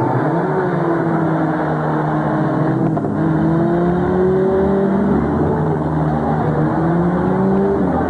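Several demolition derby cars' engines running and revving together, their pitches rising and falling over a dense rumble as the cars push and spin.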